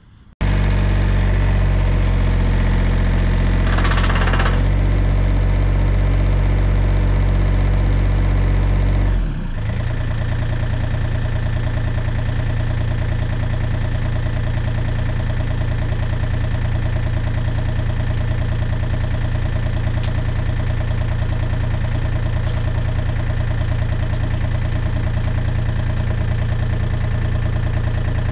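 Compact excavator's diesel engine running, cutting in abruptly; about nine seconds in its note changes, then it runs on steadily.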